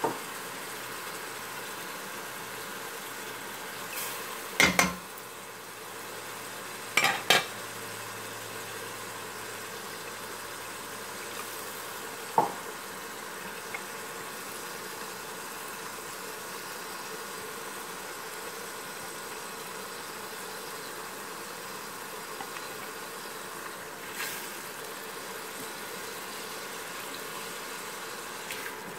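Onion-tomato masala paste sizzling steadily in a steel pot, with a few sharp metal clinks of a steel spoon against the pot, mostly in the first half.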